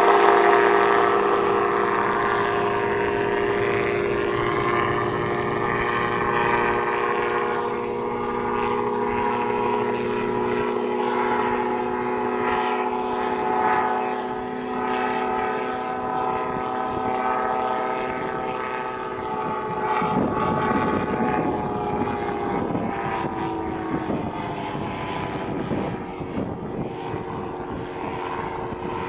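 Merlin single-seat gyroplane's Rotax 582 two-stroke engine and propeller droning steadily in flight, loudest at first and slowly fading as it moves away.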